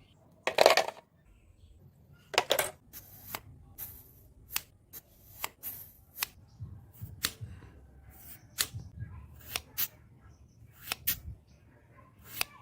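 Irregular sharp clicks and light taps of small hard objects being handled, about a dozen spread unevenly, with a louder, longer burst about half a second in.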